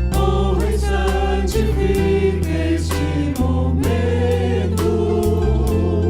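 Gospel worship song: several voices singing together over a bass line and a steady drum beat.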